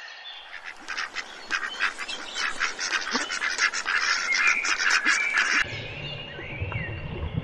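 A flock of domestic waterfowl calling, many rapid overlapping honks and quacks, which cut off abruptly about five and a half seconds in. After the cut, birds chirp over a low rumble.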